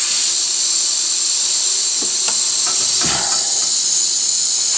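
Steady hiss of the Carvera Air's compressed-air assist jet blowing across the work, with a few faint knocks about two to three seconds in.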